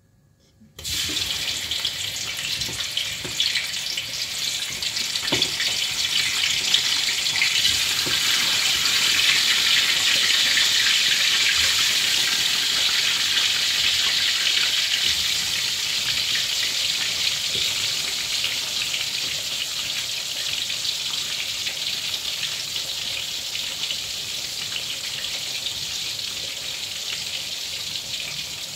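Marinated tempe frying in hot oil in a wok: a sizzle that starts suddenly as the first pieces go in, builds to a loud, steady hiss and then slowly eases.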